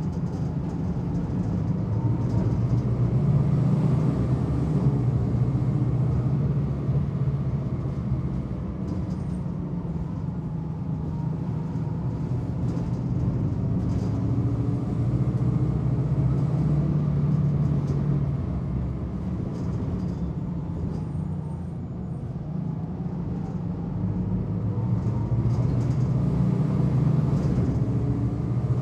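Old bus engine heard from inside the cabin: a heavy, low engine rumble that runs steadily, easing off a little about a third of the way in and again about three quarters of the way in before building back up. Faint small clicks and rattles sit above it.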